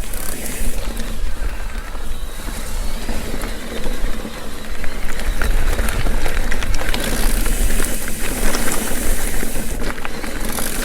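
Mountain bike ridden along a damp dirt trail: tyres rolling and the bike rattling in quick clicks, with wind rumbling on the microphone. The rolling hiss grows louder about seven seconds in.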